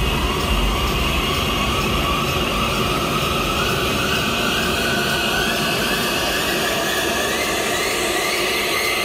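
Electronic dance music build-up over a loud festival sound system: a noisy riser sweeps steadily upward in pitch, and the bass thins out toward the end.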